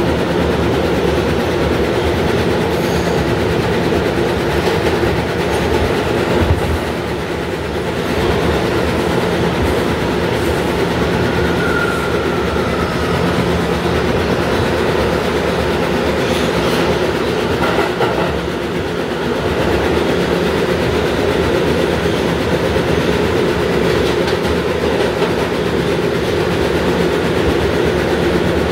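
R211 subway car running at speed through the tunnel, heard from inside the car: a steady, loud rumble of wheels on rails and traction motors.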